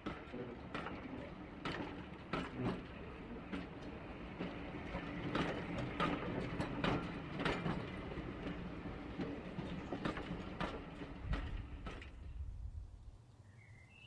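OO gauge model train of tank wagons rolling along the track, its wheels clicking irregularly over the rail joints above a steady mechanical hum. The sound fades away about 12 seconds in.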